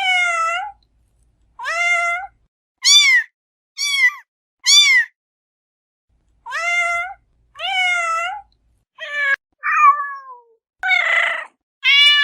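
A series of about a dozen short, high-pitched kitten meows with dead silence between them and a longer pause midway. Near the end one call comes out harsher and rougher than the rest.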